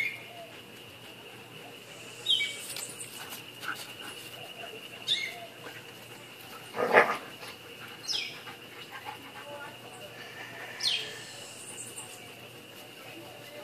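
A German shepherd barks once, sharply, about seven seconds in, the loudest sound here. Between the barks, a bird repeats a short falling call about every three seconds over a steady high-pitched drone.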